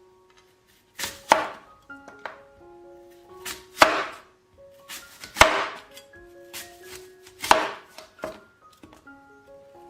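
Kitchen knife chopping on a cutting board: heavy chops roughly every two seconds, with lighter taps between, over a simple background melody.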